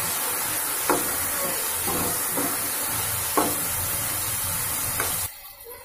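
Chopped tomatoes and onion sizzling in hot oil in a kadai, stirred with a spatula that knocks against the pan about five times. The sizzle cuts off suddenly a little after five seconds in.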